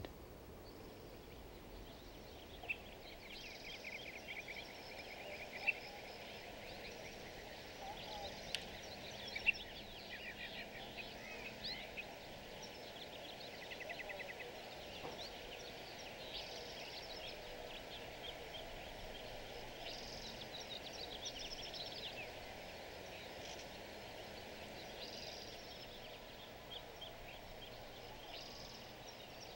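Songbirds chirping and trilling in short repeated phrases over faint outdoor background noise. A few brief sharp clicks come in the first ten seconds.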